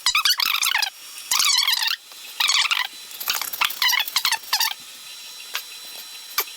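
Creality CR-30 belt 3D printer's stepper motors whining in short bursts of warbling, squeaky pitch as the print head makes its moves, with brief quieter pauses between moves.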